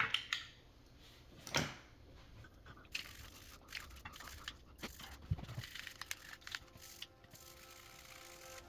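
Scattered scraping and rustling of small plastic mouse shell parts being scrubbed with a toothbrush and handled, with a louder rasp about a second and a half in.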